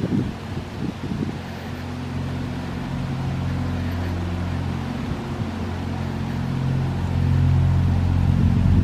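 A moored narrowboat's engine running steadily, a low even hum that grows louder toward the end. Wind buffets the microphone in the first second or so.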